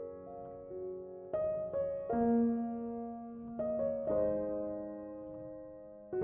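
Soft background piano music: slow, sustained chords, each struck and left to ring and fade.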